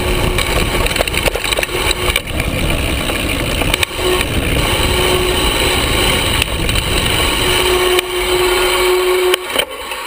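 Hardtail mountain bike rolling fast down bumpy dirt singletrack, heard from close to the drivetrain: steady tyre and wind noise with rattling and frequent sharp knocks as the bike hits bumps. It quietens near the end.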